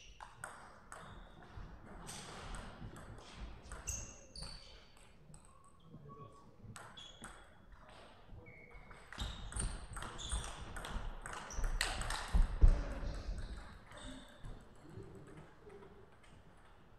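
Table tennis rallies: the celluloid-type plastic ball clicks off the rackets and the table in quick exchanges, with short high squeaks scattered through. A heavy thump comes a little past halfway.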